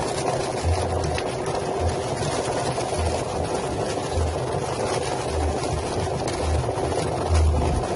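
Drum-type chicken feather plucker running steadily while it plucks slaughtered chickens, with irregular low thuds about once a second.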